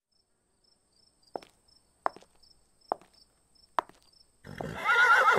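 Four slow footsteps over crickets chirping, then a horse whinnying loudly, with a wavering pitch, near the end.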